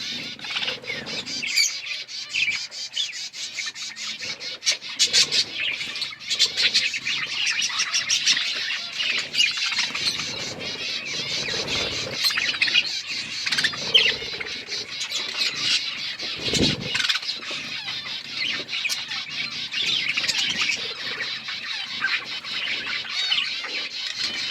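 A group of Australian parrots chirping and twittering steadily, several birds at once, with many quick sharp clicks as they crack seeds. There is a brief low thump about two-thirds of the way through.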